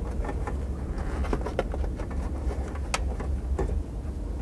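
Plastic sunroof trim being pressed back into place on a Subaru Forester's headliner: scattered light clicks and taps over a steady low hum.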